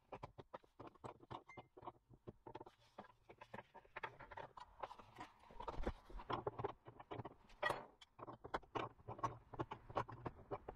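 Quick, irregular light clicks and knocks, several a second, of hand tools and metal tap fittings being handled while kitchen taps are fitted at a sink; they get busier and louder about four seconds in.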